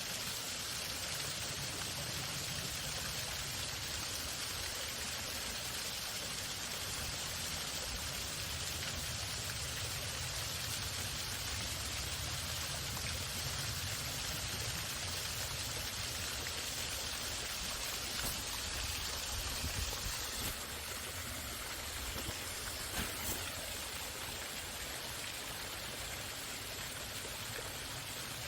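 Waterfall: a steady rush of falling water, easing slightly about two-thirds of the way in.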